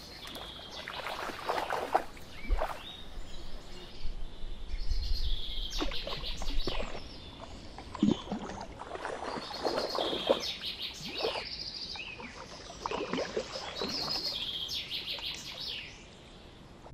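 Common bream splashing and thrashing at the surface in irregular bursts as they spawn against willow roots at the water's edge. Small birds chirp throughout.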